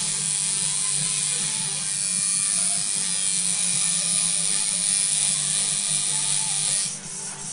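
Electric tattoo machine buzzing steadily as the needle works into the skin, cutting off near the end.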